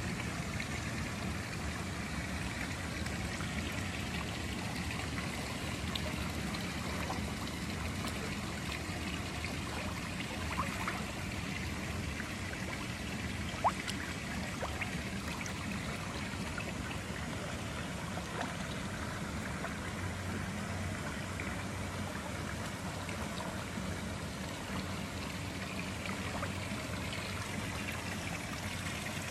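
Swimming-pool water trickling and lapping as a person swims slowly through it. Two brief sharp clicks come a little past the middle.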